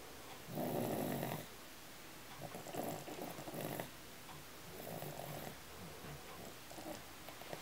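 Snoring: a series of rasping snores, roughly one every one to two seconds, the first about half a second in the loudest.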